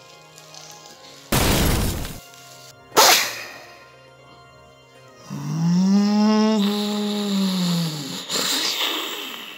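Battle sound effects over background music: a loud blast about a second in and a sharp crack at about three seconds. Then a long drawn-out wail that rises in pitch, holds and falls away over about three seconds, followed by another burst of noise near the end.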